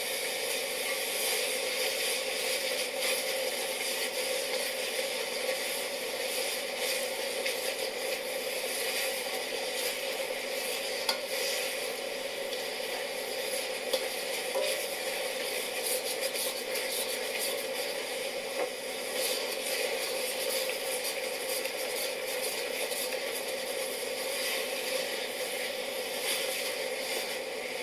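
Aosa (sea lettuce) simmering down into tsukudani in a pot: a steady bubbling sizzle with small crackles and ticks throughout, and the odd louder click from a utensil or the pot.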